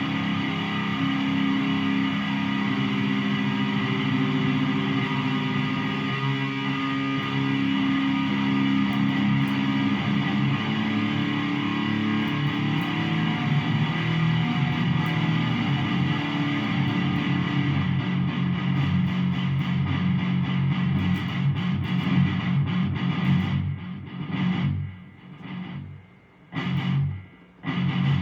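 Electric guitar tuned to drop F#, playing low notes and chords that ring out for long stretches. Near the end it breaks into short chugged chords with abrupt stops between them.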